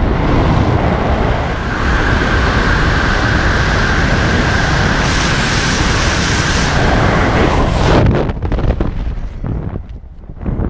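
Freefall wind rushing hard over the jumper's camera microphone, with a steady high whistle in the airflow and growing stronger toward the end of the fall. About eight seconds in the roar cuts off sharply as the parachute opens, leaving softer, gusty flapping wind.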